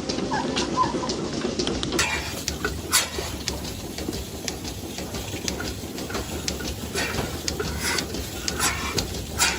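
Irregular clicks and clinks, some sharper than others, over a steady background noise.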